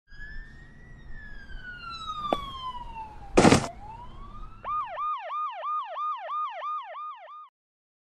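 Police siren sound effect: a slow falling wail, broken about three and a half seconds in by a loud sharp bang. The siren then winds up again and switches to a fast yelp, about three sweeps a second, which stops shortly before the end.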